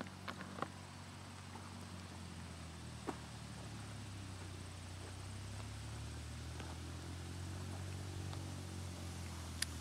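Low, steady drone of a farm tractor's engine working a field, swelling slightly over the seconds. A few sharp clicks cut through it, the loudest near the end.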